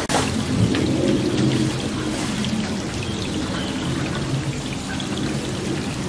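Steady rain falling, with a sharp crack at the very start and low steady tones underneath.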